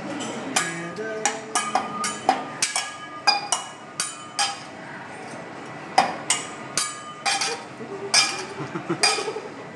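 Teppanyaki chef clanging metal spatulas against the steel griddle and utensils in a show flourish: a quick run of sharp, ringing metal strikes, two or three a second, with a pause of about a second and a half midway.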